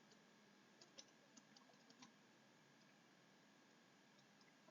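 Near silence: faint room tone with a few light clicks, the clearest about one and two seconds in.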